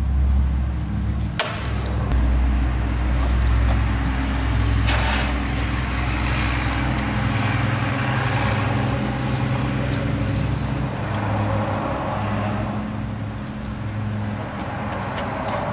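Steady low mechanical rumble of a running machine, strongest in the first half and easing off after about seven seconds, with a few sharp clicks scattered through.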